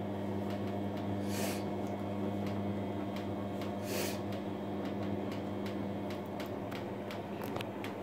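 Grundig GWM 4762 front-loading washing machine starting its intermediate spin after the main wash: a steady hum with light ticking, and two short hissing bursts about a second and a half and four seconds in.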